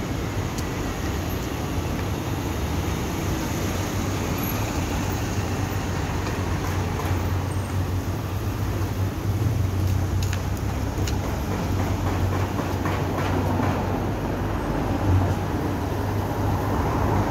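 Steady street traffic with the low engine hum of passing vehicles; a minibus's engine grows louder near the end as it draws up close.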